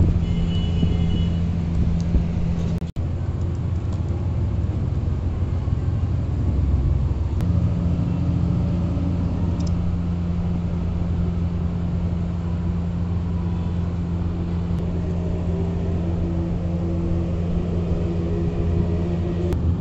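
A steady low mechanical hum and rumble, like a running motor, that drops out briefly about three seconds in.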